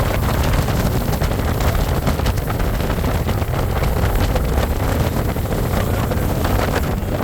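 Motorboat running across the water, its engine rumble and water noise mixed with steady wind buffeting the microphone.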